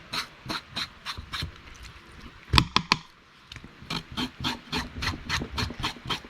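Fillet knife scraping the fine scales off a pompano in quick, even strokes, about four a second. Near the middle the scraping stops briefly, with a few sharper knocks, then starts again.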